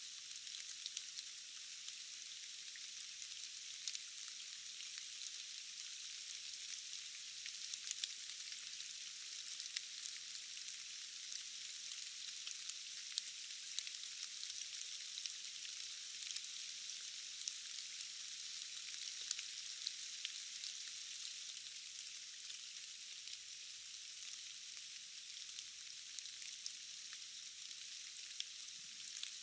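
Steady rain falling in a forest: a dense, even hiss with many small drop ticks scattered through it, thin and with no low rumble.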